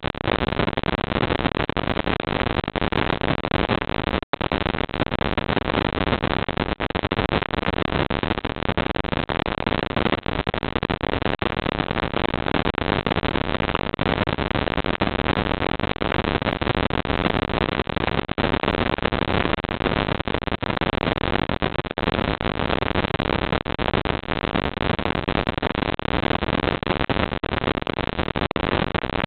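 Steady, even hiss from a security camera's built-in microphone, with a brief dropout about four seconds in.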